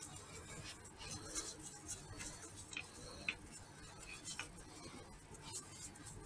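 Faint, scattered light clicks and clinks as a paintbrush dabs liquid from a small cup and is brushed onto a wooden bowl, with one sharper click about three seconds in.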